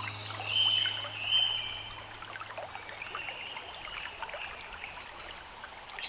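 Recorded stream trickling and flowing steadily, with short, high whistled notes over it. The two loudest notes come about half a second and a second and a half in, and a fainter, longer one about three seconds in.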